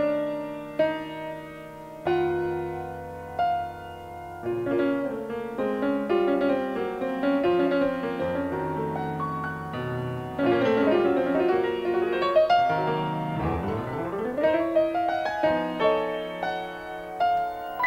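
Piano music with sustained chords and a melody. About thirteen and a half seconds in there is a rising swoop in the low notes.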